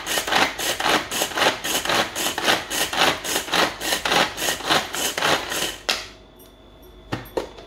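Hand-pulled string mini chopper spinning its blades through green chillies, worked with quick repeated pulls, about three rasping whirs a second. The pulling stops about six seconds in, followed by a couple of sharp clicks near the end.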